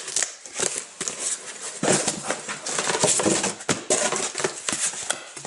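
Corrugated cardboard mailer box being opened by hand: flaps scraping and rustling, with a string of small knocks and taps as a cardboard backboard is slid out and laid down.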